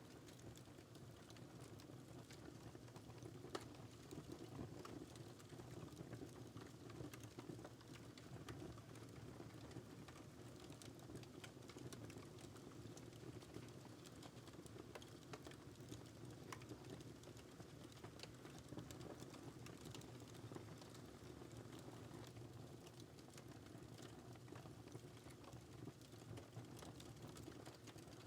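Wood fire in a fireplace crackling softly, with frequent small quick pops and snaps over a low steady rumble.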